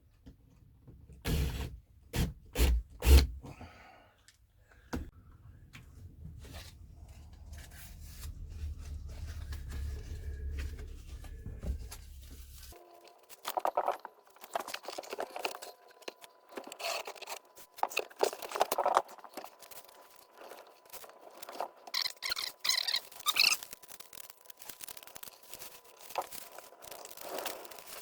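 Hands-on work on a motorhome dashboard panel: a few loud knocks near the start, then scraping, rustling and clicking as the panel and its trim are handled and pushed into place.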